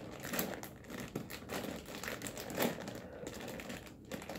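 Plastic packaging crinkling and rustling, with irregular small clicks, as a plush toy is worked out of its wrapping by hand.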